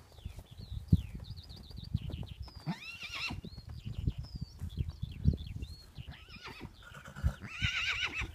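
Horses whinnying in a pasture: a wavering call about three seconds in and a louder, quavering one near the end, over irregular low thuds of hooves on turf. Small birds chirp throughout.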